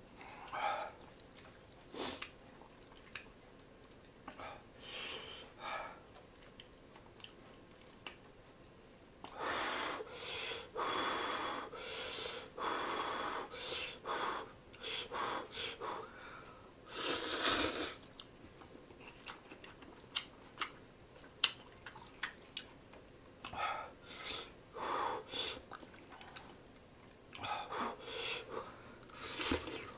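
A person eating instant ramen: noisy slurps of noodles and broth, with chewing between them, and short sharp clicks of metal chopsticks and spoon against a steel pot. The loudest slurp comes a little past halfway.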